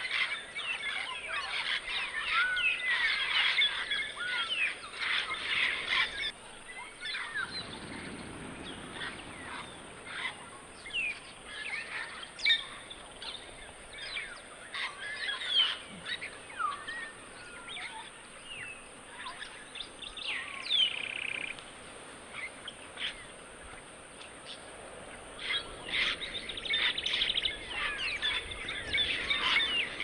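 A flock of African grey parrots calling: many overlapping whistles and squawks, densest at the start and again near the end, sparser in between.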